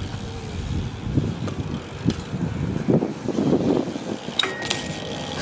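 BMX bike rolling over a concrete skatepark surface, then a sharp metallic clank and scrape as it meets a metal rail near the end.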